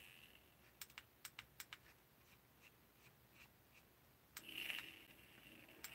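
Faint small clicks and taps from handling the parts of a rebuildable vape atomizer, a quick run of them about a second in and softer ones after. A brief breathy hiss comes near the end.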